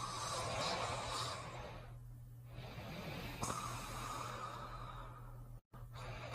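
Slow, noisy breathing of a sleeper, close to snoring: two long breaths about three seconds apart, over a low steady hum.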